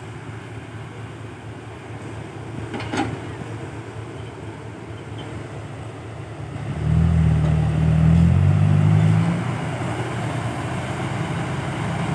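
Heavy diesel engines of an excavator loading soil into a dump truck, running steadily, with a brief clatter about three seconds in. About seven seconds in, an engine revs up loudly under load for two to three seconds, then settles back to a steady run.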